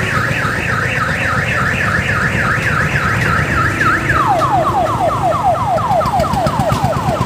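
Electronic siren cycling through two patterns: a fast high warble, then about four seconds in a repeated falling wail, about four sweeps a second. Under it a low engine, the odong-odong's dompeng diesel, runs steadily.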